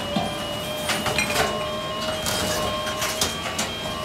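Truck-mounted hydraulic boom with a spiked rotating grinder drum crushing wood and cardboard debris in a roll-off dumpster: the truck's engine and hydraulics run steadily with a held whine, debris cracks and crunches several times, and a beeper sounds over and over at an even pace.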